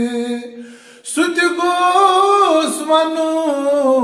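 A man singing a Kashmiri naat without instruments: a held note ends just after the start, and after a short breath a new long phrase begins, its pitch winding up and down and sliding lower about halfway through.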